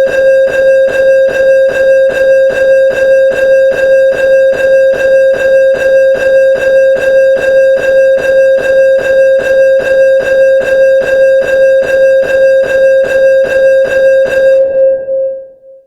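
Railroad crossing bell ringing with rapid, evenly spaced strikes. It stops near the end, and the last strike rings down briefly.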